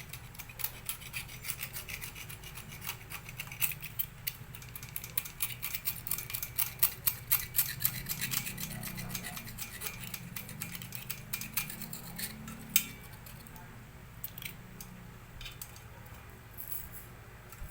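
Cutter blade scraping melted laminating film off a laminator's heating element in quick, short, scratchy strokes. The strokes come thick and fast through the middle, with one sharper click about thirteen seconds in, then thin out.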